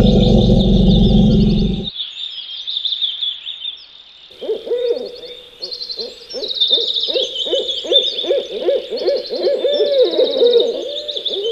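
A low, steady blast on a long wooden horn cuts off about two seconds in. After that, birds chirp and trill high up, and from about four seconds in an owl hoots in a steady series of short hoots, about two a second.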